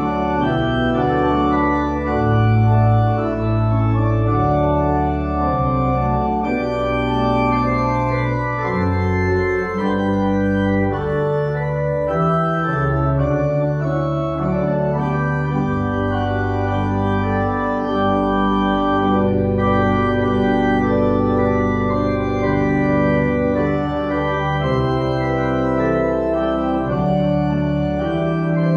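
Organ music: sustained chords held and changed every second or two over a deep bass line, at a steady loudness.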